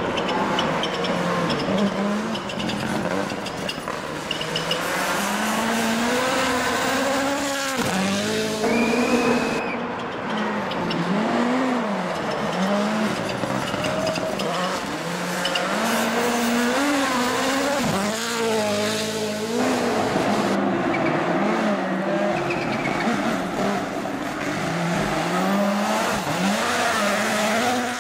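Rally cars driven flat out, engines revving hard and climbing in pitch, then dropping back at each gear change as the cars pass one after another.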